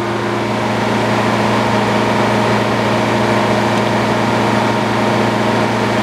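Old circular sawmill's drive running steadily at idle, with no log in the blade. It makes an even mechanical hum with several steady low tones.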